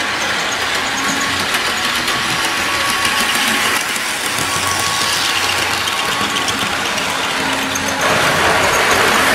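Bachmann HO scale diesel model train running on its track: a steady whir of the locomotive's small electric motor and the rolling of wheels on the rails. The sound shifts about four seconds in and gets louder about eight seconds in.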